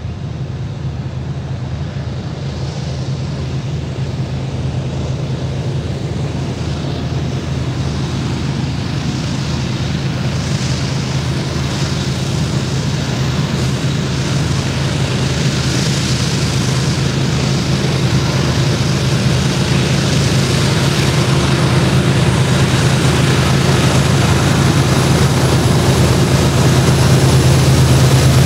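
Diesel-electric locomotives of a BNSF coal train approaching and passing close by, their engines a steady low drone that grows steadily louder.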